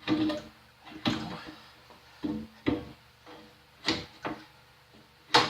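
Irregular metallic knocks and clanks, about eight in all, some ringing briefly: metal machine parts and tools being handled and set in place on a molder planer.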